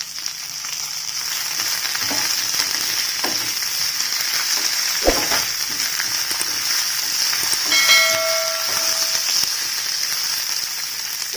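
Oil sizzling steadily in a pan as shallots, garlic, lentils and dried chillies fry with freshly added coriander and curry leaves, with a few knocks from stirring. A brief ringing tone sounds about eight seconds in.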